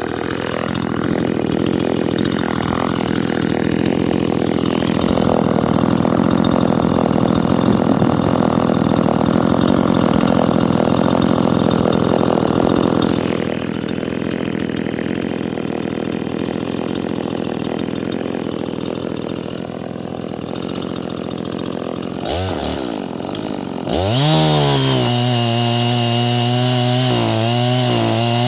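Two-stroke chainsaw cutting through a fallen tree, running hard under load for the first half, then lighter. Near the end it drops and revs back up to a steady, high-pitched run.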